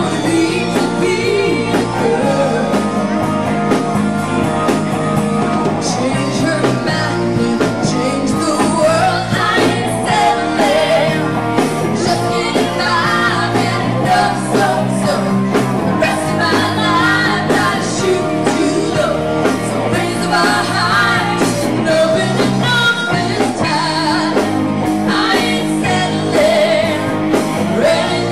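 Live rock band playing a song: electric guitar, drum kit and singing, loud and steady.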